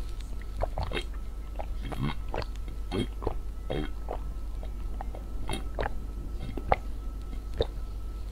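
A person gulping a drink from a large plastic bottle, swallowing over and over, about one gulp every half-second to second, close to the microphone.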